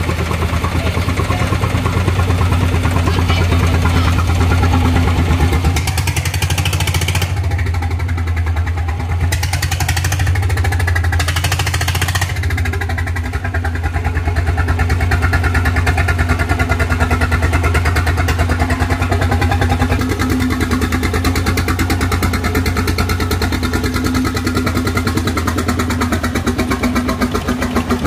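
Tianli 1130 single-cylinder diesel engine of a small boat running steadily, a fast, even chug of firing strokes.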